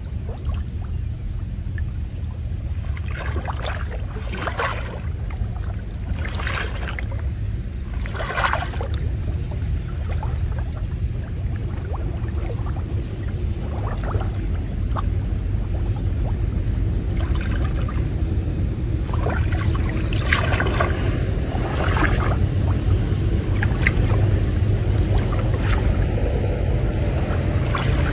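Muddy lake water splashing and sloshing as a fishing net is hauled up and shaken out by a man wading in it, a string of short splashes over a steady low rumble.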